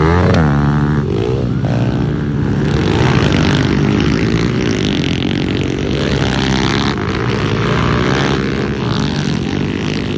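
Several pit bike engines racing together. The overlapping engine notes rise and fall in pitch as the riders work the throttle through the track, with a sharp rev right at the start.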